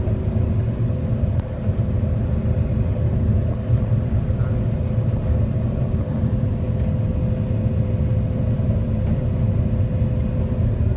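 Diesel engine of a large farm machine at corn harvest running steadily under load: a low rumble with a steady mechanical whine over it, part of which drops out near the end.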